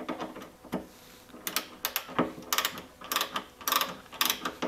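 A hand-turned Torx bit driving a T-20 screw into the plastic spring-pivot housing, giving a run of short, sharp clicks, often in pairs about half a second apart.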